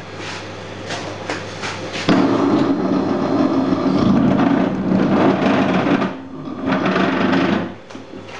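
Commercial dough mixer kneading a heavy batch of panettone dough: the motor hums steadily while the dough slaps and knocks against the steel bowl, loud from about two seconds in to six and again briefly near the end. The dough is coming away from the bowl walls, the sign that it is fully kneaded.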